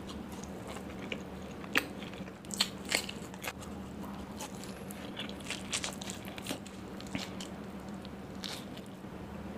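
Close-miked biting and chewing of puri, deep-fried puffed Indian bread, scooped with curry: irregular crisp crunches, the loudest few in the first three seconds, over a faint low steady hum.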